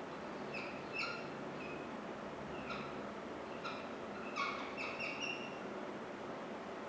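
Dry-erase marker squeaking against a whiteboard while a drawing is sketched: a string of short, same-pitched squeaks, thickest around the middle, over a steady room hiss.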